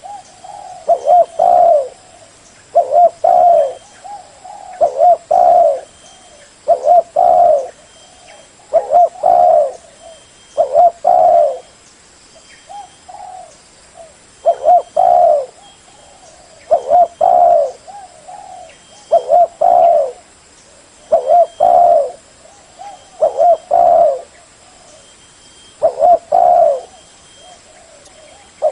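Spotted dove cooing: a repeated phrase of a few low, mellow coos, coming about every two seconds.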